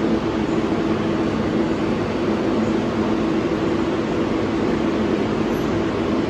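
New York City R142-type subway train running: a steady rumble with a low, even hum of several tones.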